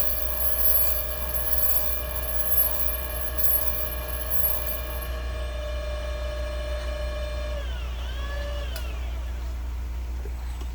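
Valve grinding machine running with a steady whine from its motor and spinning chuck. At about seven and a half seconds it is switched off and the whine glides down as it spins to a stop, with a sharp click about a second later. A low electrical hum continues underneath.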